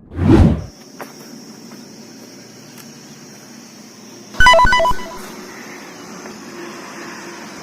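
Edited-in sound effects: a short low whooshing hit at the start, then a quick run of electronic beeps like a phone ringtone about four and a half seconds in, over a faint steady hiss.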